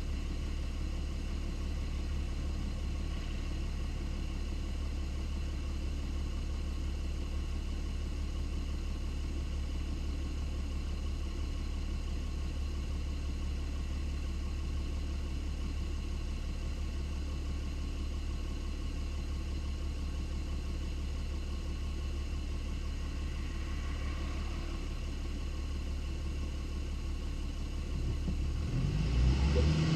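Lexus IS250 car running with a steady low rumble and no distinct knocks; it grows louder about two seconds before the end.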